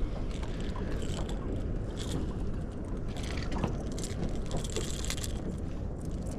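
Steady low wind-and-water noise on an open boat, with scattered light clicks and rattles as the landed fish and its treble-hooked topwater lure are handled.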